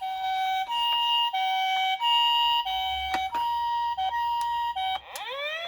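Toy ambulance's electronic siren playing the two-tone hi-lo pattern of a Japanese ambulance, each tone lasting about two-thirds of a second, then switching to a rising wail about five seconds in. A few faint clicks sound over it.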